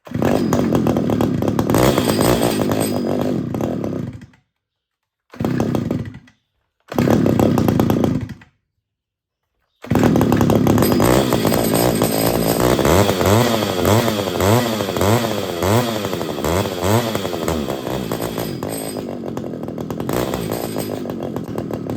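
Pioneer P28 two-stroke chainsaw running in short runs that cut off abruptly, then a longer run with the revs surging up and down about once a second, a sign the carburettor needs adjusting.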